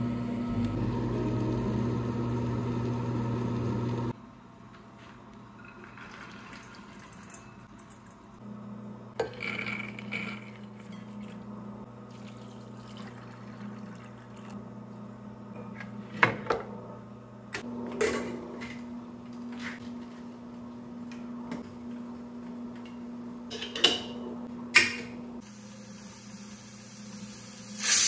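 A steady electrical appliance hum that cuts off suddenly about four seconds in, then a quieter hum that comes and goes, with a few sharp clinks and knocks of kitchenware. A short loud hiss at the very end.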